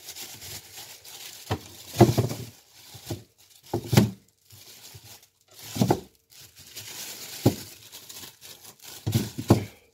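A thin plastic bag of carrots rustling and crinkling as the carrots are shaken out of it. They tumble into a plastic fridge crisper drawer in a handful of separate knocks.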